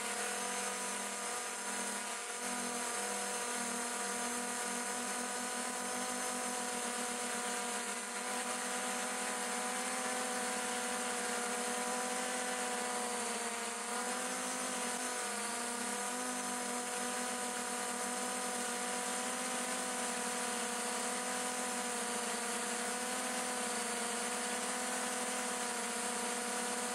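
Multirotor drone's motors and propellers whining steadily over a hiss, their pitch wavering briefly about fourteen seconds in as the craft adjusts its flight.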